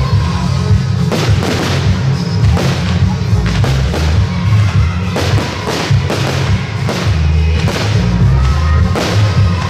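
Fireworks shells bursting with sharp bangs and crackles every half second or so, over music with a heavy bass.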